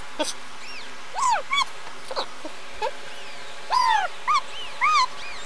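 Newborn kitten mewing: a string of short, high, arching cries, about seven or eight, the longest about four seconds in.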